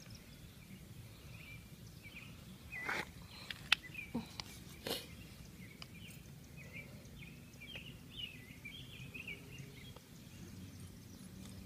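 Outdoor background with birds chirping faintly in short calls, over a low steady rumble. A few sharp clicks and knocks come about three to five seconds in.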